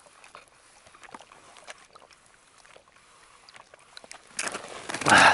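Faint small sips and clicks as a man drinks icy creek water through a hollow dry-grass straw, then loud rough breathing for about a second near the end as he pauses for breath.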